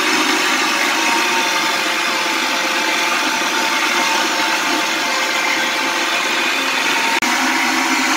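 Electric meat grinder running steadily under load as it minces raw fish fillets with fried onion, with a momentary break about seven seconds in.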